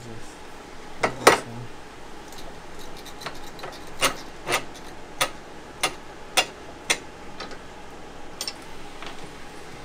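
Tube straightener-bender clamped in a bench vise being handled and its top adjusting screw turned: two sharp metal clicks about a second in, then a run of six clicks at about two a second.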